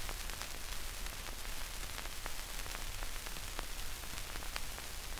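Record surface noise from a 78 rpm disc playing its lead-in groove. A steady hiss with a low hum runs under scattered clicks and pops.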